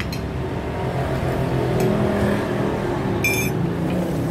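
Motor traffic running close by, a steady engine hum, with a brief sharp high sound about three seconds in.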